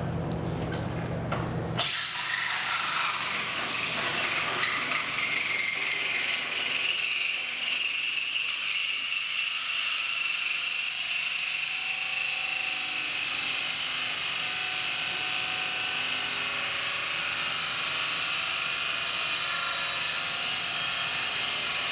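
Brand-new bi-metal hole saw in a cordless drill at high speed, screeching against stainless steel: a steady high-pitched squeal that starts suddenly about two seconds in. It is the sign of the saw making no headway while the tips of its teeth wear off.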